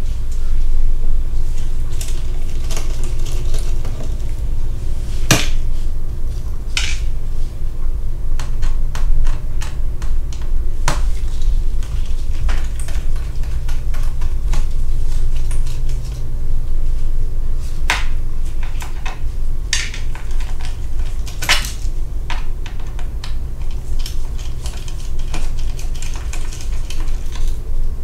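Scattered small clicks and taps of a Torx T4 precision screwdriver working the tiny screws out of a laptop's bottom cover, with an occasional sharper click, over a steady low hum.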